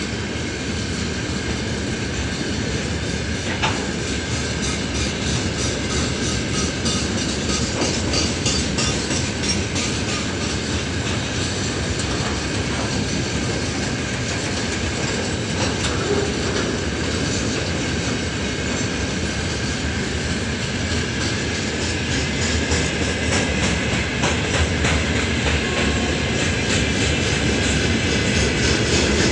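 Freight train of open gondola wagons rolling past close by: a steady rumble of wheels and wagon bodies, with regular clickety-clack as the wheelsets cross the rail joints.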